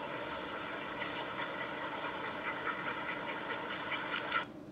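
Outdoor background noise from a home video played through a laptop's speakers: a steady, muffled hiss with faint rustling, cutting off suddenly about four and a half seconds in as the playback ends.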